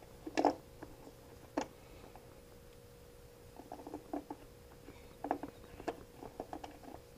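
Plastic vent caps being twisted off flooded lead-acid batteries by hand. There are two sharp clicks about half a second and a second and a half in. From about three and a half seconds on comes a quick run of small clicks and rattles.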